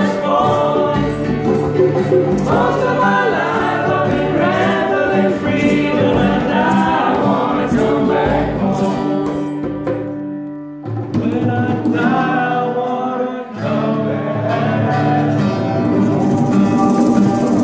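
Several voices singing together to djembe hand drums and strummed acoustic guitars. The music drops low for about a second around ten seconds in, then picks up again.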